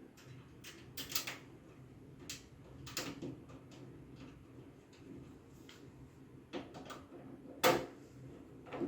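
Scattered clicks and knocks of parts of a desktop computer case being handled and fitted back together, the loudest knock near the end, over a faint steady hum.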